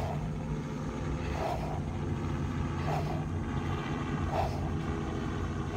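Rhythmic forceful exhales through the nose in a yoga breathing exercise, a short burst of breath about every second and a half. Under them runs a steady low engine drone.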